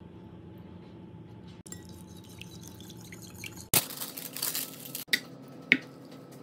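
Parchment paper rustling loudly for about a second as a sheet is handled, followed by two sharp clinks of metal on glass about half a second apart.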